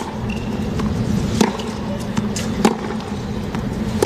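Tennis ball struck back and forth with rackets in a baseline rally: sharp pops about every second and a quarter over a steady stadium crowd hum.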